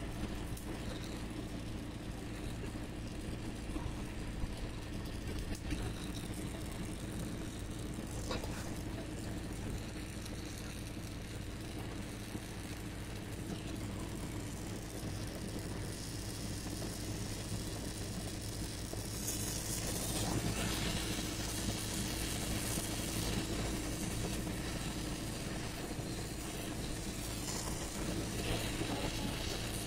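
Gas welding torch flame hissing steadily as it heats a thin aluminium tube for brazing with an aluminium rod, over a steady low mechanical hum. The hiss grows louder a little past the middle.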